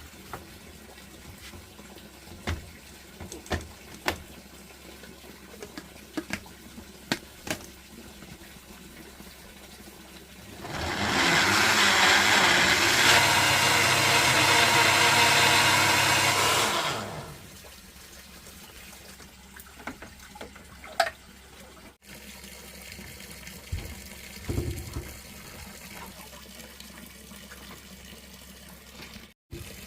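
Water rushing or pouring for about six seconds, loud and even, with scattered small knocks and clicks before and after it.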